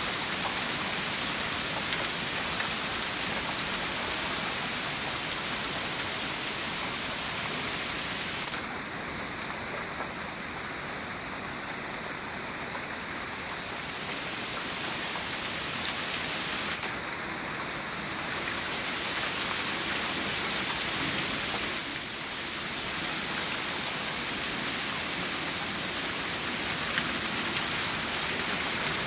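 Wet snow and sleet falling on a wooden deck and patio table, a steady hiss of precipitation that dips slightly in level partway through.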